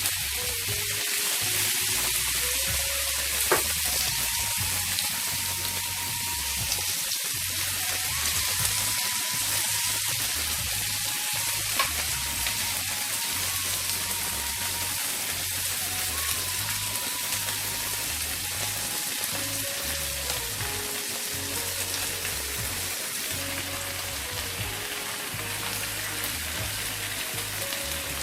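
Food sizzling steadily as it fries in hot oil in a pan, with two brief sharp clicks of a utensil along the way. Quiet background music plays underneath.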